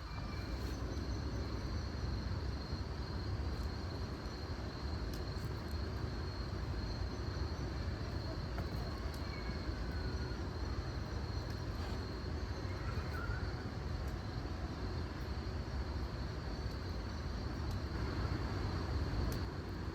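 Steady outdoor ambience: a continuous low rumble with a constant high-pitched insect trill over it and a few faint clicks.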